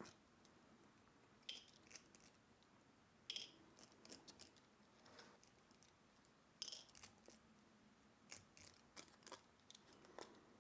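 Faint, scattered clicks and light metallic ticks of small tools and screws being handled during lens disassembly, at irregular intervals with a small cluster near the end.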